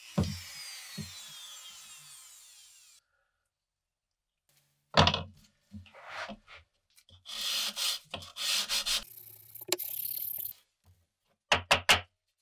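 Craftsman rotary tool spinning down after being switched off, its whine falling away over about three seconds. After a short silence, sandpaper is rubbed along the steel bayonet blade in a series of hand strokes. A few quick knocks come near the end.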